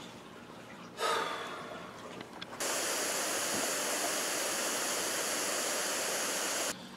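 Steady hiss of falling rain, starting abruptly about two and a half seconds in and cutting off suddenly just before the end. A shorter breathy rush comes about a second in and fades away.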